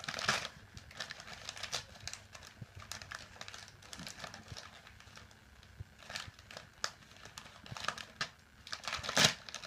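Gift-wrapping paper crinkling and crackling in irregular bursts as a small wrapped present is picked open by hand, with the loudest crackle near the end.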